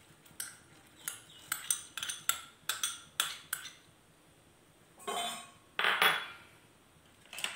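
A metal spoon clinking and scraping against a glass bowl in a quick run of taps as chopped cabbage is knocked out into a steel pot of water. A pause follows, then a couple of longer scrapes.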